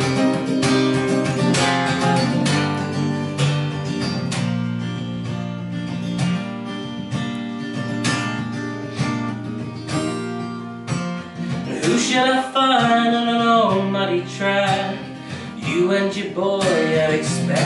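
Solo acoustic guitar played live, strummed and picked chords in an instrumental passage between verses. About twelve seconds in, a man's singing voice comes in over the guitar.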